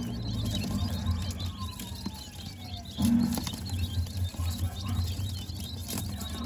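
Quail chicks pecking at crumble in a plastic feeder tray: a steady patter of small beak taps with a few faint cheeps. A low steady hum sits underneath, and there is a brief dull knock about three seconds in.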